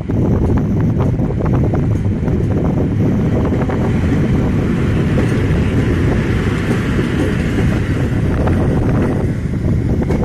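EP07 electric locomotive and its passenger coaches rolling past on the track as a steady rumble, which grows fuller as the train draws alongside. Wind buffets the microphone.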